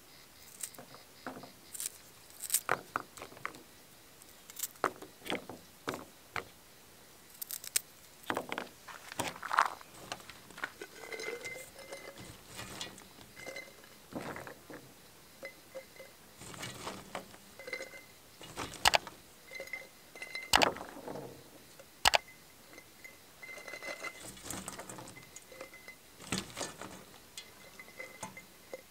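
Hands packing small hot peppers and peeled garlic cloves into an empty glass jar: irregular light taps, clicks and clinks against the glass, with a few sharper knocks past the middle.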